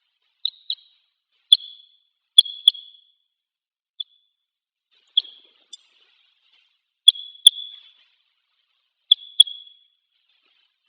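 Red crossbill giving short, sharp single calls, often in quick pairs, repeated every second or two.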